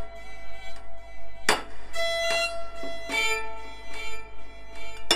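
Background music: a violin melody of held notes, with one sharp percussive hit about one and a half seconds in.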